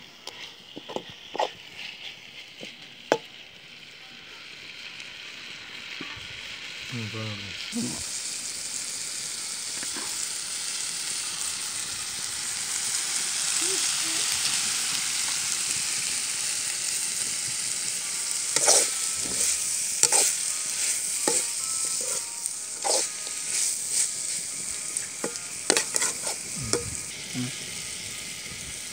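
Meat, onion and green chilli stir-fry sizzling in a blackened pan, with a metal spoon stirring and scraping it in sharp clicks and knocks. The sizzle grows louder over the first several seconds and then holds steady.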